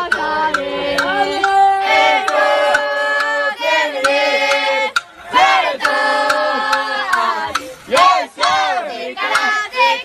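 A small cheering squad of about ten students chanting and singing a cheer song together in unison, with sharp hand claps between the held notes.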